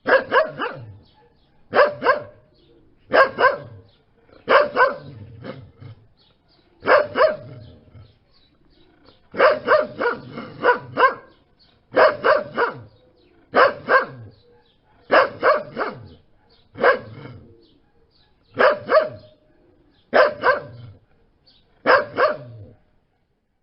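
A dog barking repeatedly in short bouts of one or two barks, about every one and a half seconds, with a longer run of several barks near the middle.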